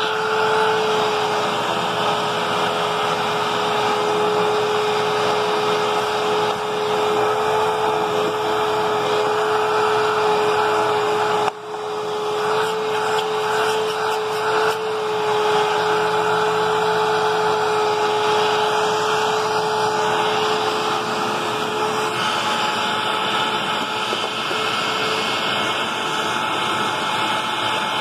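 Hoover WidePath bagless upright vacuum cleaner running on carpet: a steady rush of air with a constant motor whine. The sound dips for an instant about eleven seconds in.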